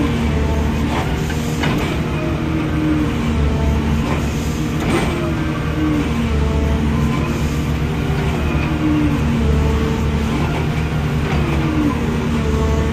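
Engine of an auger drilling machine running steadily, with a short falling whine that repeats every one to two seconds.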